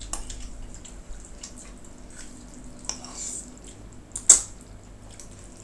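Close-up eating sounds: rice noodles being slurped and chewed, with small wet mouth clicks and light fork taps on the ceramic dish. A short, sharp slurp about four seconds in is the loudest sound.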